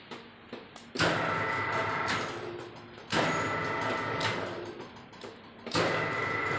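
Heavy-duty spiral bender's electric drive running in three bursts as its foot pedal is worked. Each burst starts abruptly with a whine over mechanical noise and fades over about two seconds.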